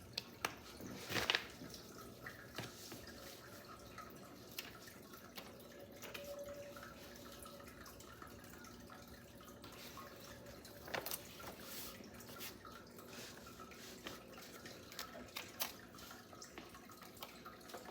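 Scattered light clicks and taps of objects being handled, with soft rustling between them and a quiet background.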